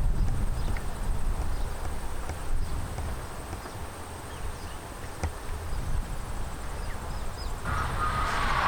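Outdoor field ambience: wind rumbling on the microphone with a faint high insect buzz and small chirps. Near the end a louder whistling sound starts and falls slowly in pitch.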